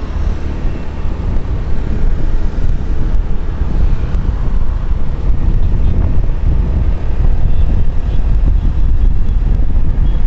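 Wind buffeting the microphone while moving along a city road, over a steady low rumble of road traffic.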